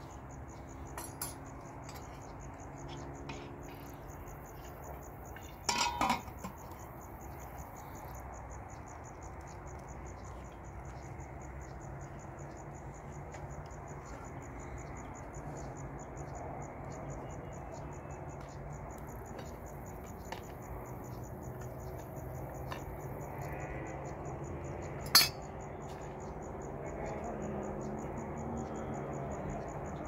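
Occasional clinks of metal teapots and dishes being handled, with a short rattle about six seconds in and one sharp, loud clink near the end, over the steady, rapid chirping of crickets.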